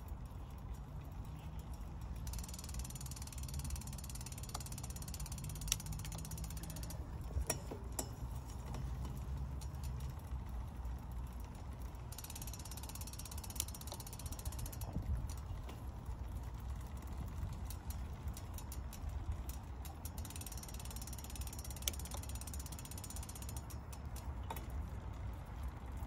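Bicycle drivetrain turning: the chain running over a Shimano Deore XT 11–46t 11-speed cassette and the pulleys of a Shimano Zee rear derailleur with a steady low hum, sharp clicks of gear shifts now and then, and three stretches of a higher ratcheting buzz.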